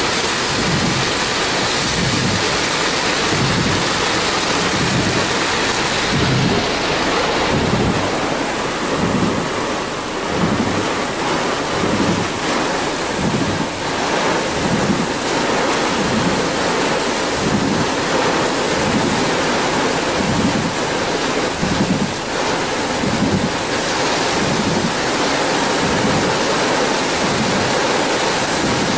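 Heavy rain pouring down in a windy thunderstorm: a loud, steady rushing hiss with a low pulsing buffet recurring about once a second.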